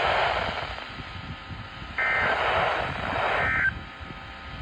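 Weather radio hiss, then about two seconds in a raspy, buzzing two-tone digital data burst lasting under two seconds. This is the Emergency Alert System SAME code that signals the end of a NOAA Weather Radio warning message.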